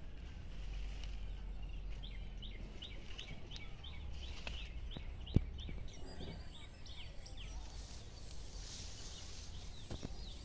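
A bird calls in a quick run of short, falling notes, about three a second, for several seconds from about two seconds in. A single sharp click comes near the middle, over a low rumble on the microphone.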